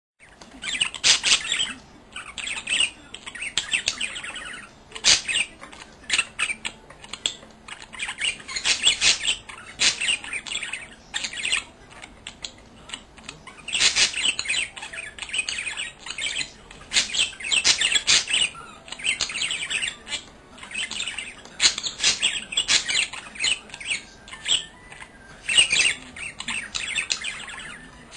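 Budgerigar chattering and warbling in bursts of a second or two, with rapid clicking mixed in.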